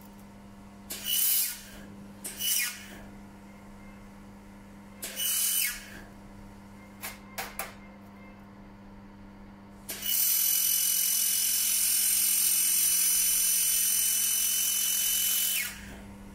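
1500 W handheld fiber laser welder welding 1.5 mm stainless steel: three short hissing tack bursts and a couple of brief clicks, then a steady hiss of about six seconds for the continuous seam that starts about ten seconds in and stops just before the end. A low steady hum runs underneath.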